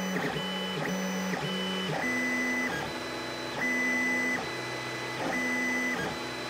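Tevo Tarantula Pro 3D printer's stepper motors whining as the print head lays down the first layer, with its part-cooling fans still off. It is a string of steady tones that change pitch with each move: short moves under half a second for about two seconds, then longer moves of about a second each.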